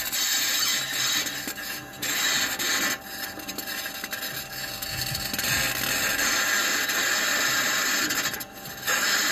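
Perseverance Mars rover driving: a steady scratchy, grinding noise of its wheels and running gear scraping and clanking over rock. It is the rover's own microphone recording, played back over radio.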